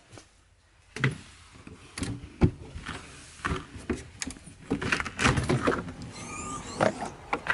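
RV entry door being unlatched and pushed open: a string of clicks, clunks and rattles from the handle, latch and door, with a dense cluster of knocks about five seconds in.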